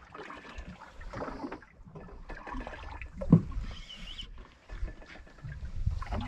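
Water splashing and lapping against a fishing boat's hull, over an irregular low rumble, with one sharper knock about three seconds in.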